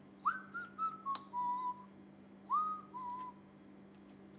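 A man whistling a short tune in two phrases, each sliding up and then stepping down; the second is shorter. There is a small click about a second in.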